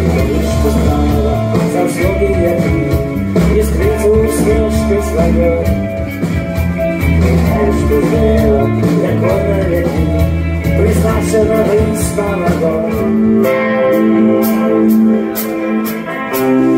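Live rock band playing: electric guitars, bass and drums. About 13 seconds in, the low bass drops out, leaving held guitar chords over cymbal strokes.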